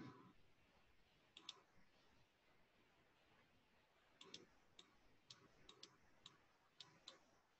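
Faint computer-mouse clicks over near silence: a pair about a second and a half in, then about ten scattered clicks in the last three and a half seconds, as an on-screen eraser is worked. A brief soft thump right at the start.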